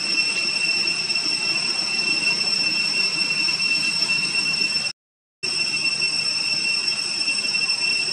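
Steady, high-pitched insect drone, a constant whine on a few fixed pitches over a low hiss. It cuts out completely for about half a second around five seconds in, then carries on unchanged.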